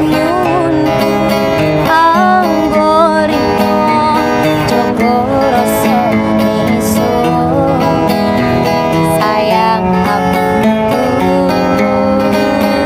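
A Javanese song performed on acoustic guitar, strummed and plucked, while a voice sings a wavering, ornamented melody over it.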